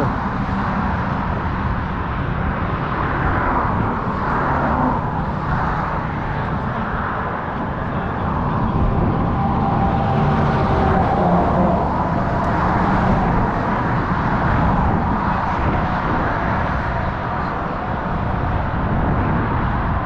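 Road traffic passing steadily: a continuous rush of tyres and engines that swells and eases as vehicles go by, over a low rumble.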